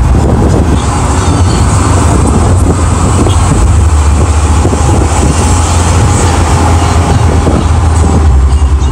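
Loud, steady low rumble of road and engine noise inside a moving microbus.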